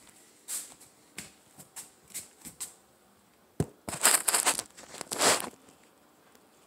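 Rustling and crinkling handling noise: scattered soft rustles, a single knock about three and a half seconds in, then a loud stretch of crinkling rustles lasting about a second and a half.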